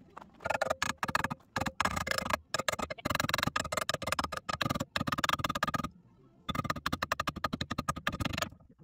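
Hammer striking steel in fast runs of many blows a second, with a metallic ring and short pauses, the longest about two-thirds through: hammering on the rusted trailer hitch ball and mount to free it.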